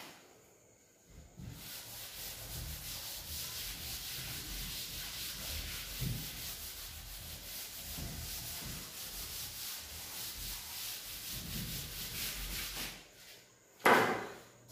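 Chalkboard duster rubbing over a chalkboard, wiping off chalk in steady strokes for about twelve seconds. It stops about a second before a brief louder sound near the end.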